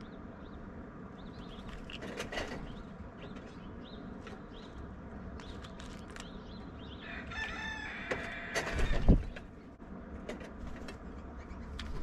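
A rooster crows once, a wavering call of about a second and a half starting roughly seven seconds in, over faint chirps of small birds. A loud low thump near nine seconds in is the loudest sound.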